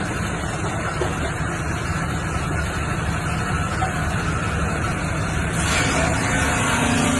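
Wood chipping machine running with a steady, heavy mechanical noise. A little over five seconds in, the noise grows louder and brighter, and a faint steady hum joins it near the end.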